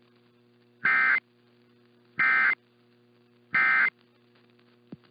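Emergency Alert System end-of-message code: three short, identical bursts of two-tone digital data, each about a third of a second long and about a second apart, signalling that the alert has ended. A faint steady hum lies underneath.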